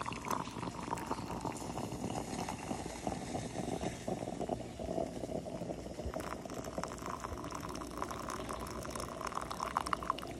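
A thin stream of amber liquid poured steadily into a mug, trickling into the rising liquid as the mug fills, with a few light clicks near the end.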